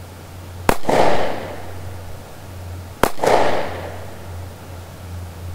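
Two 9mm pistol shots from a Taurus PT 709 Slim firing steel-case ammunition, a little over two seconds apart, each followed by a short fading echo.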